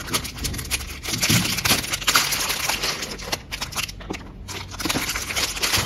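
Clear zip-lock plastic bag crinkling and crackling as it is pulled open by hand and its contents are drawn out. The crackling eases off briefly about two-thirds of the way through.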